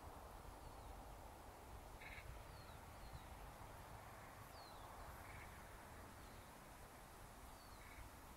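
Near silence with faint outdoor ambience and a few faint, short bird calls a few seconds apart, plus some thin falling chirps.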